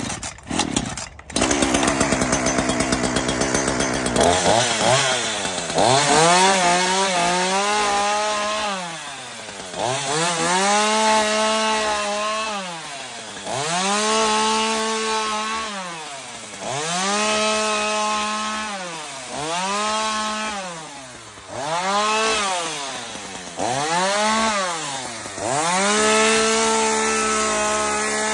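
Ryobi 16-inch chainsaw cutting through hedge branches and leaves, the chain sped up and let wind down again and again, so its whine rises, holds and falls every two to three seconds.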